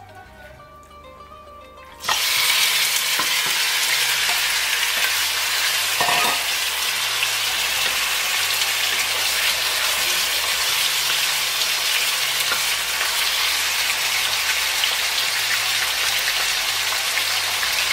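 Raw goat meat chunks hit hot oil in a frying pan with a sudden loud sizzle about two seconds in. The steady frying hiss carries on as the meat is stirred with a spatula.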